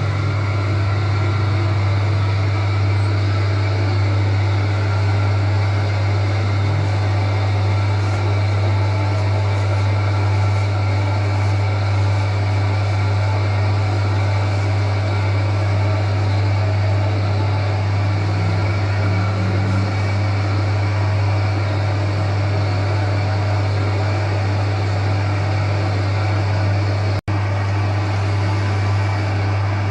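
Electric arm-type dough kneading machine running steadily, its motor giving a constant low hum under the churning of the mixer. The sound cuts out for an instant near the end.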